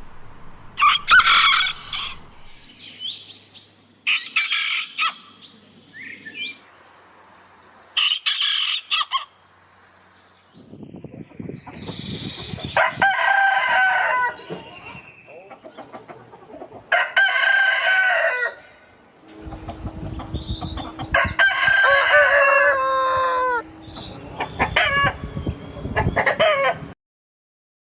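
Roosters crowing, about seven separate crows spaced a few seconds apart, the later ones long with a drawn-out falling end.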